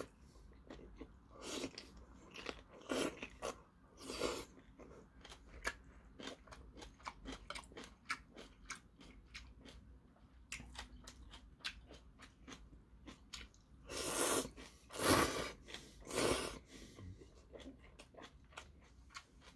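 Close-miked eating of seafood jjamppong noodles: wet chewing with many small mouth clicks, and noodles slurped in several times, the three loudest slurps about two-thirds of the way through.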